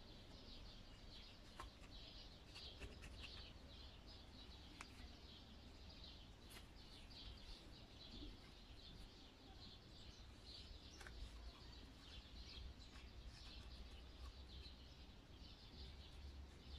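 Near silence: faint, steady chirping of birds in the background over a low hum, with a few faint clicks.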